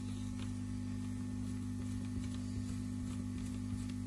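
Steady low electrical hum, with a few faint ticks from a screwdriver working a corroded screw on a metal antenna socket.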